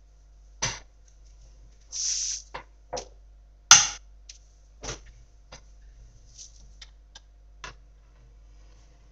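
Handling sounds on a desk: scattered sharp clicks and knocks, with a short rustle about two seconds in and the loudest click just before four seconds.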